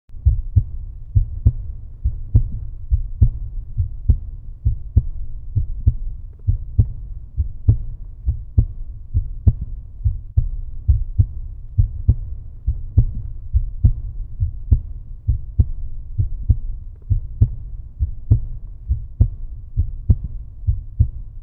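Heartbeat sound: a steady lub-dub rhythm of deep, low thumps at about 70 beats a minute. It stops abruptly near the end.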